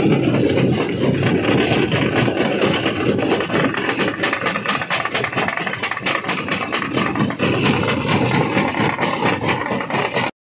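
Stone crusher running under load: a steady mechanical din with many sharp knocks and clatters of rock going through it. The sound cuts out abruptly for a moment at the very end.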